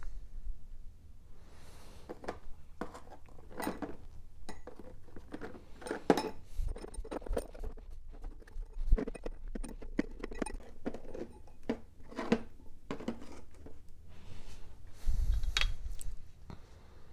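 Small metal engine parts clinking and clattering irregularly as they are handled and set down, with a few dull thumps, the loudest near the middle and near the end.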